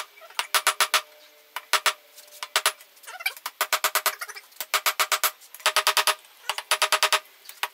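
Hand hammer blows on a handled top tool held against red-hot leaf-spring steel on a steel block anvil. The blows come in quick bursts of several strikes with short pauses between, and each rings with a bright metallic tone. This is forging down the tang of a leaf-spring knife.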